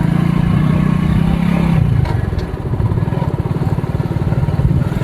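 Motorcycle engine running while riding, a steady low pulsing whose note eases off about two seconds in.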